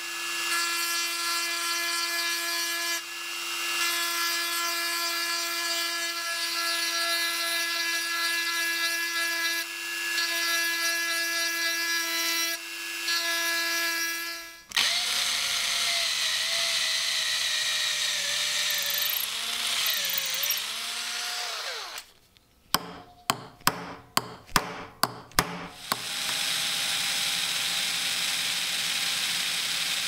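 Handheld rotary tool with a small ball burr whining at a steady pitch as it grinds at a pocket knife's metal handle, with a few brief dips. About fifteen seconds in, a drill takes over, boring into a wood block with its pitch sagging and wavering under load. It gives a run of about seven short trigger bursts, then drills steadily into the knife handle.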